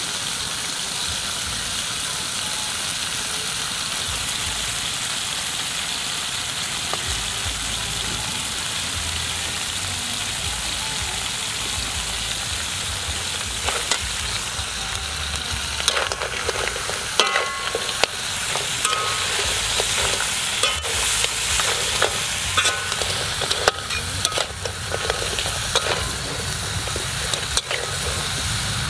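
Crabs sizzling as they fry in a metal wok, a steady hiss. From about halfway through, a metal ladle stirring clinks and scrapes against the wok and the crab shells.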